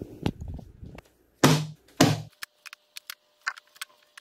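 Pine boards being handled and set down on a workbench: two loud wooden thunks about a second and a half and two seconds in, then scattered light clacks of wood on wood.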